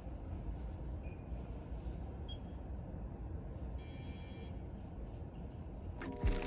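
Low, steady rumble of city traffic noise, with a faint high ringing for about half a second near the middle.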